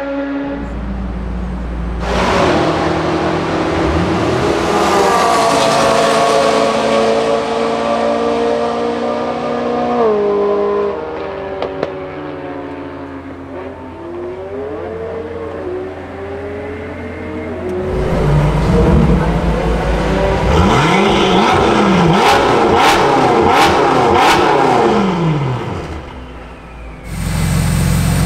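F10 BMW M5's twin-turbo V8 accelerating hard from the pit lane, its pitch climbing and dropping back at each upshift. Later, performance cars pass at speed, engine notes rising and falling as they go by, with several sharp cracks; just before the end, an engine idling.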